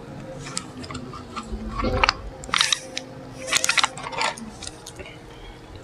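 Close-miked crackling and crunching in about four short bursts through the middle: a takeout burger meal and its wrapping being handled.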